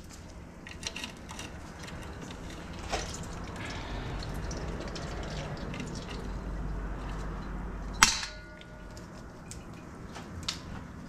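Automatic transmission fluid running out of the loosened transmission pan into a drain pan, a steady splashing flow. A single sharp metallic clank about eight seconds in rings briefly, and the flow is quieter after it.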